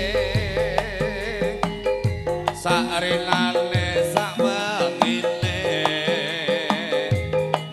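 Javanese gamelan playing: kendang drum strokes about every second and a half, their low notes dipping in pitch, over metallophones ringing a repeating figure, with a voice singing a wavering, ornamented line.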